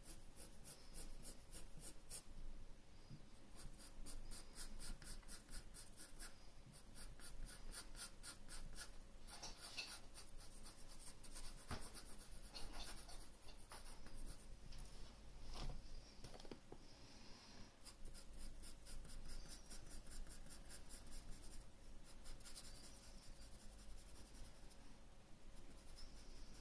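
Graphite pencil shading on drawing paper: faint, scratchy runs of rapid short strokes, broken by brief pauses.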